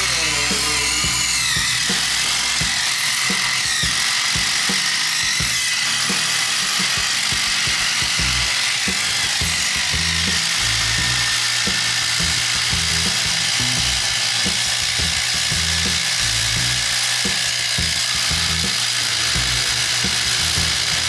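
Two cordless impact drivers, a Craftsman V20 and a RIDGID Octane, running hard side by side, hammering continuously as they drive fasteners, with music playing behind them.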